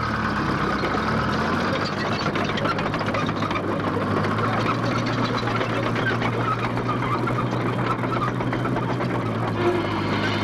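A heavy engine running at a steady speed: a low, even hum with a clattering rattle over it.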